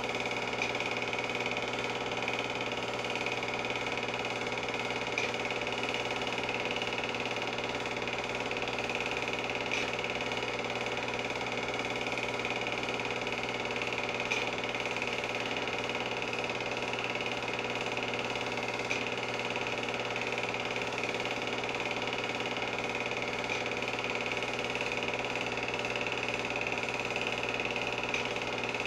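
Film projector running: a steady mechanical whir and clatter of the motor and the film advancing through the gate.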